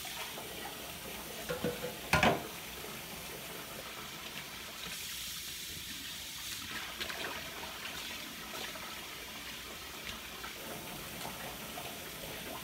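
Kitchen tap running into a stainless steel sink while plastic juicer parts are rinsed, with a sharp knock about two seconds in.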